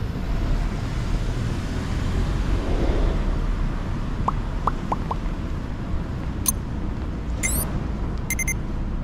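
Busy city street ambience: a steady low rumble of traffic and street noise. Four short rising chirps come about four to five seconds in, and a few short high electronic beeps near the end.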